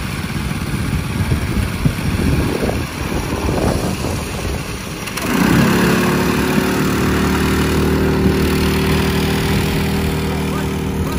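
Go-kart's small engine catching about five seconds in with a quick rise in pitch, then running steadily at a constant speed. Before it, a low noisy background.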